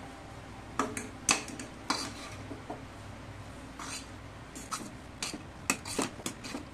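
Flat metal spatula scraping and knocking against a stainless-steel kadai as a thick jackfruit and breadcrumb mixture is stirred. The strokes come in irregular clusters of sharp scrapes and clicks, busiest near the end.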